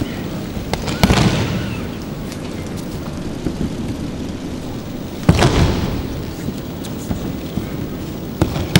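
Three heavy thuds of a body landing in breakfalls on tatami mats: about a second in, about five seconds in, and near the end, each echoing through a large hall.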